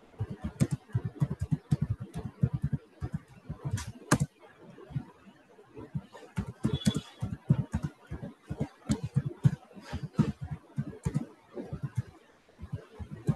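Typing on a computer keyboard: quick, irregular keystrokes with a brief pause about a third of the way in.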